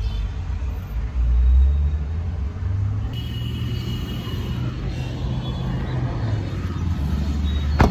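Low, steady rumble of a car and road traffic, with a single sharp knock near the end.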